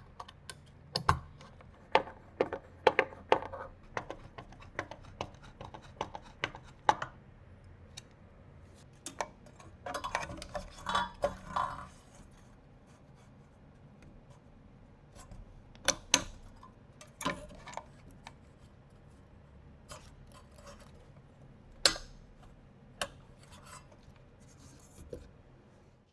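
Sharp clicks, taps and light clatter of hard computer parts being handled and fitted together, with a denser stretch of rattling and scraping about ten seconds in.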